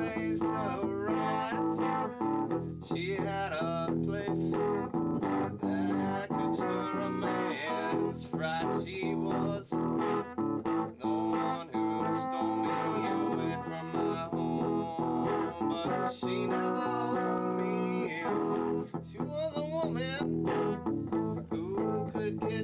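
Folk song: a man singing to guitar accompaniment.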